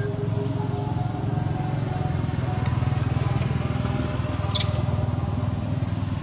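A small engine running steadily nearby, a low pulsing hum that keeps an even level throughout. A brief high squeak sounds about four and a half seconds in.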